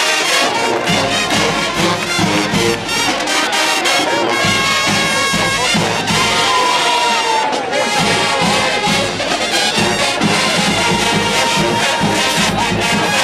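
HBCU marching band playing at full volume: a brass section of trumpets and trombones over a steady drumline beat, with some crowd noise and cheering.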